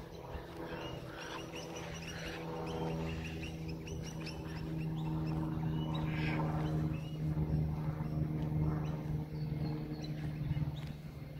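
Small birds calling with quick high chirps, thickest in the first few seconds, over a steady low engine hum that grows louder about halfway through.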